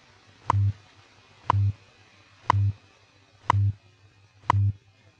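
WWV shortwave time signal received in AM on 10 MHz: five second ticks, one a second, each a short sharp 1000 Hz tick with a brief low 100 Hz time-code hum under it, over faint radio static.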